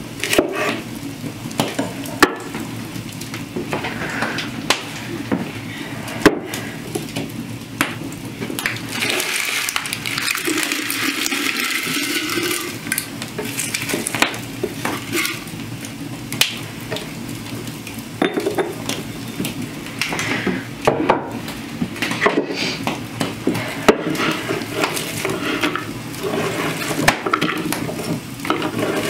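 Kitchen knife chopping and scraping onions on a wooden cutting board, with irregular sharp knocks of the blade on the board and the rustle of onion pieces and skins being handled.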